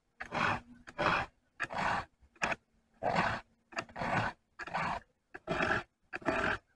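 Chainsaw file rasping across the cutters of a full-complement saw chain: about ten quick, even strokes, roughly one and a half a second.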